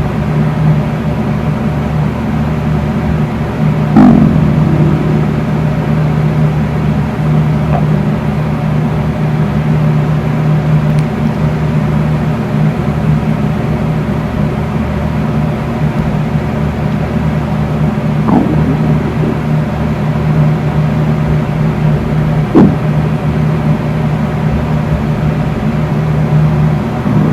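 An empty stomach growling and gurgling in a few short bursts, the loudest about four seconds in, over the steady hum of a running electric fan.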